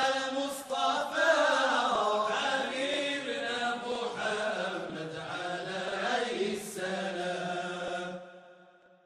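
Voices chanting a devotional song, fading out to silence near the end.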